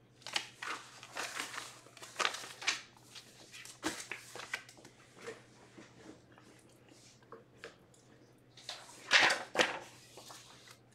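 Plastic packaging crinkling and rustling as it is handled, in irregular bursts, loudest about nine seconds in.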